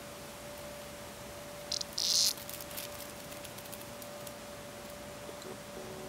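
A grounded cicada buzzing in two brief high bursts about two seconds in, a short one and then a louder one, as the cat paws at it. A few faint ticks follow.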